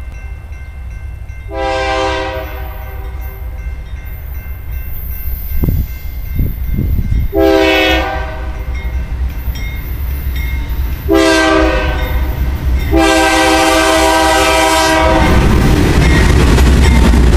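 A BNSF freight diesel locomotive's multi-tone air horn sounds four blasts for a grade crossing. The first and last blasts are long, and the two in the middle are shorter. Near the end the lead locomotives pass close by, and their diesel engines and wheels on the rail become the loudest sound.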